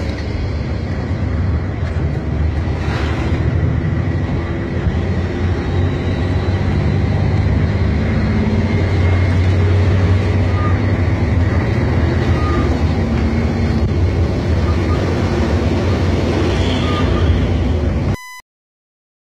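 Steady low drone of a coach bus's engine and road noise heard from inside the moving bus, swelling a little partway through. It cuts off suddenly near the end.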